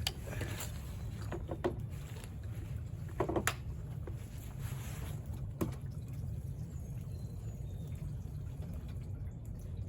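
Gasoline sloshing and dripping at a lawn mower's fuel tank, with a few light knocks and clicks from handling the tank.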